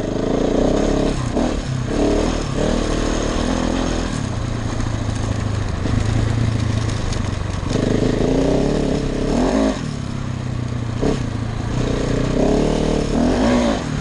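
KTM 690 Enduro's single-cylinder engine under way on a gravel track, its pitch rising and falling several times as the throttle is opened and closed, with wind rushing over the microphone.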